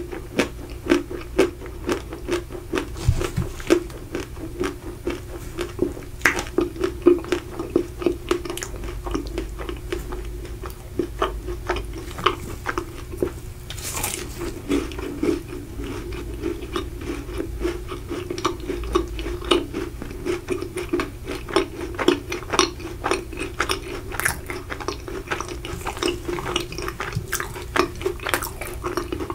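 Close-up eating of macarons: a steady run of small crunches and chewing sounds as the crisp shells break and are chewed, with a louder bite about halfway through.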